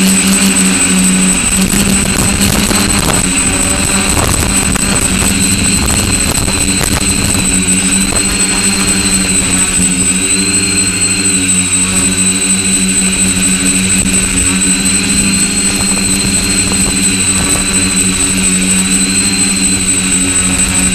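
Quadcopter's electric motors and propellers buzzing steadily, recorded close up from the craft itself, with a thin high whine above the buzz. The pitch wavers slightly as the craft manoeuvres low over the road.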